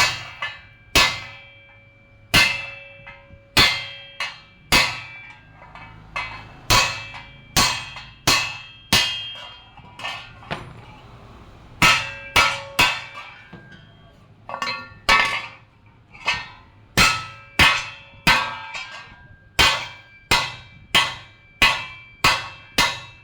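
Hammer striking metal: ringing clangs at an uneven pace of about one to two a second, with a pause of about two seconds near the middle.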